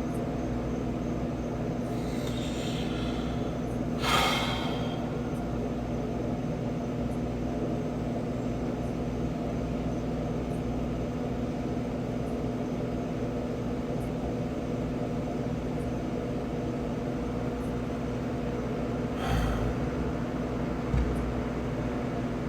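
Steady low background hum with a few fixed tones, broken by a short sharp breath about four seconds in and a softer breath near the end, followed shortly after by a small click.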